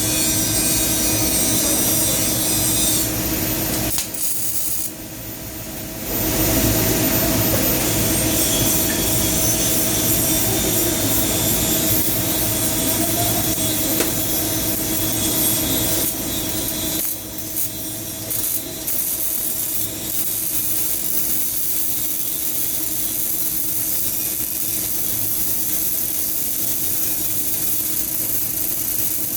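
CO2 MIG welding arc with solid wire, running a pass in the flat position: a steady, continuous hiss. The sound dips for about two seconds around four seconds in, then picks back up.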